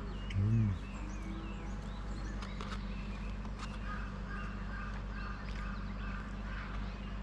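Wild birds chirping and calling: many short rising and falling chirps, joined from about four seconds in by a repeated two-note call. A man's short hummed "mm" comes near the start.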